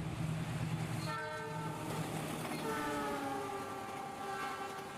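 Toy train's electronic train-horn sound effect: a pitched horn sounds briefly about a second in, then again at length from the middle on, over a steady low hum.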